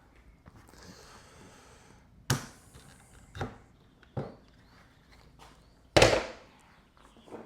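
Four separate knocks and clanks of tools and the bicycle being handled, the loudest about six seconds in with a ringing tail.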